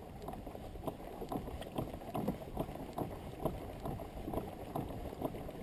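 Water lapping and splashing against the hull of a Hobie pedal kayak moving slowly backwards under its reversed Mirage drive, with many short, irregular splashes and knocks.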